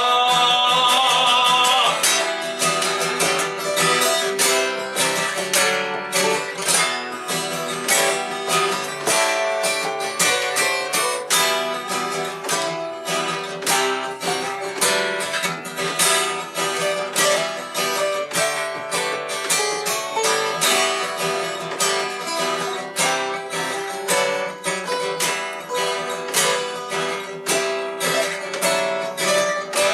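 Instrumental break of a folk song: acoustic guitars strumming a steady rhythm. It opens with a held, wavering sung note that ends about two seconds in.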